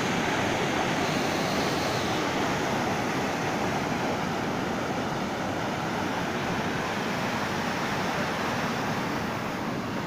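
Turbulent river white water churning and rushing, a steady, even roar of water.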